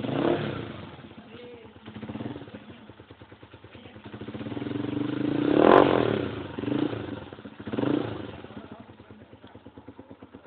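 Motorcycle exhaust (a Cott aftermarket pipe with a homemade baffle of stainless steel wool scrubbing pads) idling and being revved: a short throttle blip at the start, a smaller one about two seconds in, a longer rev building to a peak about six seconds in, then two quick blips before it settles back to a steady idle.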